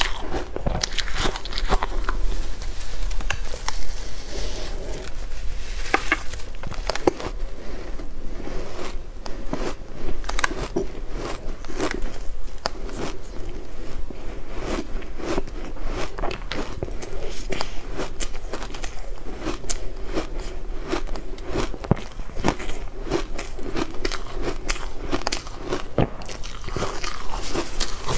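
Shaved ice being bitten and chewed: a dense, continuous run of crisp crunches and crackles.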